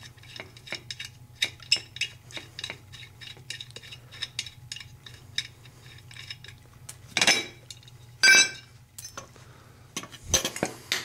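Small metal clicks and clinks as castle nuts are spun off steel ATV ball-joint studs by hand, then louder metal clanks with a brief ringing tone about 7 and 8 seconds in as the spindle comes off the ball joints, and a few more knocks near the end.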